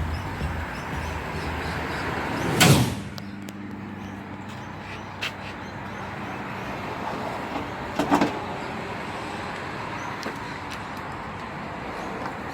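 Two loud bangs about five and a half seconds apart; a low steady rumble cuts off with the first one.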